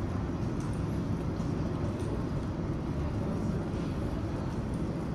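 Steady low rumble inside the cabin of a Boeing 737-800 taxiing to the gate with its engines at idle.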